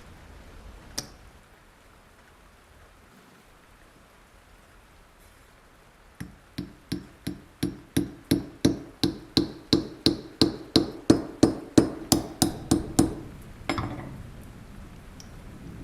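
A small hammer tapping in a steady rhythm, roughly three light strikes a second with a brief ring to each, about twenty in all, growing louder, starting about six seconds in. A single click comes a second in and one last knock near the end.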